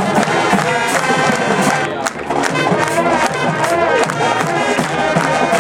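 High school marching band playing, brass horns sounding held chords over drums keeping a steady beat, with crowd noise beneath.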